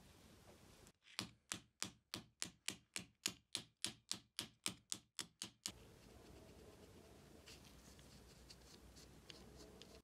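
Light, sharp metal taps on a small sheet-metal part of an antique coffee grinder: about eighteen even taps at roughly four a second that stop short. Faint handling clicks follow.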